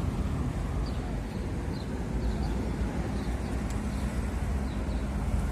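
Steady rumble of road traffic with a faint engine hum, and a few faint short chirps.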